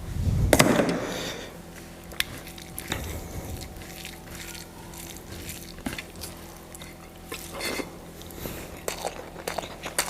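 Close-up eating sounds: wet squishing of curry and rice being mixed, bites and chewing, with scattered clicks. A loud burst comes about half a second in, over a faint steady hum.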